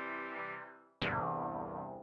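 Dave Smith Instruments Prophet 6 analog synthesizer playing a plucked-style preset, dry with no external effects. A note is dying away when a new note is struck about a second in, bright at the attack and quickly dulling as it decays.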